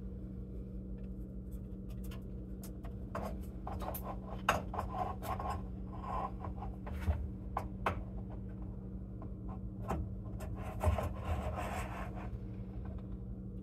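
Hands handling clear plastic air-assist tubing and pushing it onto the fitting of a laser engraver's module: scattered small clicks and plastic rubbing, with two longer spells of rustling. A steady low hum runs underneath.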